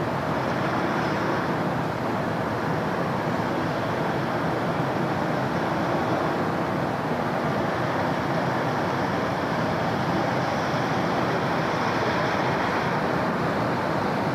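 Steady city road traffic: a continuous, even wash of car engine and tyre noise with no single event standing out.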